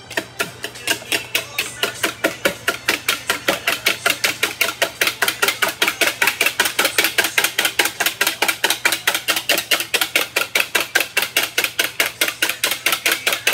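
Wire balloon whisk beating eggs in a plastic mixing bowl, its wires knocking against the bowl in rapid, even strokes, roughly five a second.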